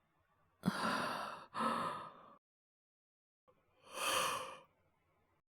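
A man's acted, laboured breathing as a feverish, sick character. There is a sharp breath with another close behind it about half a second in, then a single sighing breath about four seconds in.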